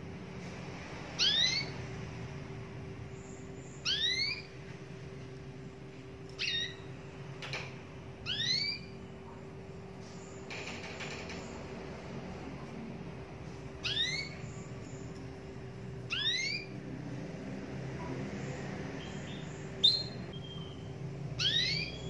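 Caged domestic canary calling: seven short whistled notes that sweep upward in pitch, a few seconds apart, with one short sharp chip near the end, over a faint steady hum.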